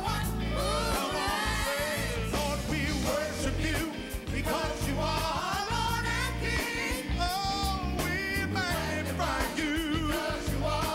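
Gospel song performed live by singers with a band: lead and backing voices over drums and a steady low bass line.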